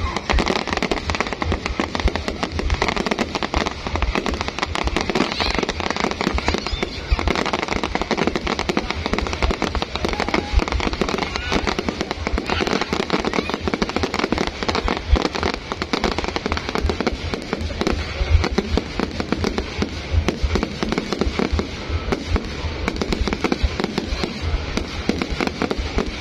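Fireworks going off in a dense, unbroken stream of bangs and crackles, with music and voices beneath them.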